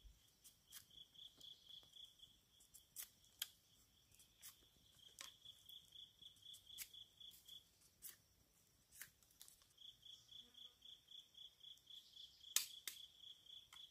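A large knife whittling a wooden stick: faint, irregular sharp cuts and scrapes, about one or two a second, with the loudest pair near the end. Behind them an insect chirps in quick high pulses, about six a second, stopping for a couple of seconds midway.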